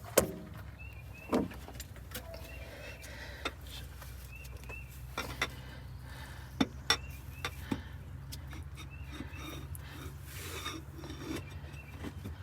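Scattered clicks, knocks and rubbing of metal parts as a new wet cylinder liner with fresh O-rings is handled and set into a Detroit Diesel 8V92TA block, over a steady low hum.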